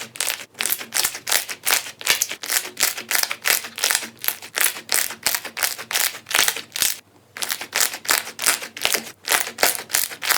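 Slime being pressed and squeezed by hand, giving a fast run of sharp crackling pops, about four to five a second, with a brief pause about seven seconds in.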